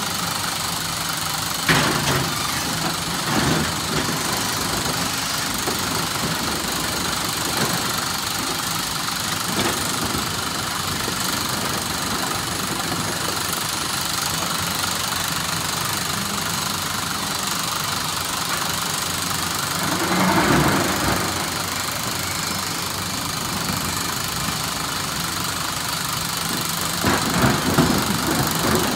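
SANY SY365H Pro excavator's diesel engine running steadily under work. A few louder knocks and rattles cut through it: two short ones in the first few seconds, a longer one about two-thirds of the way in, and a cluster near the end.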